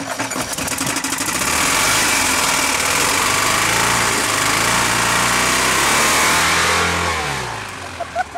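Toyota 22R four-cylinder engine running with a thrown connecting rod and a hole in the side of the block: a rapid knocking clatter, then it is revved up and held at high revs, and the revs fall away near the end.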